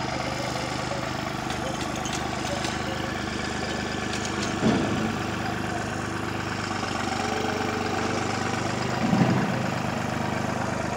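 New Holland 3630 tractor's three-cylinder diesel engine idling steadily, with two short louder bursts about four and a half and nine seconds in.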